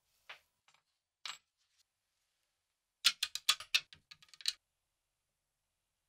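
Small rusty metal padlock parts clicking and clinking against each other as they are handled: two single clicks, then a quick run of about ten sharp clinks around three to four and a half seconds in.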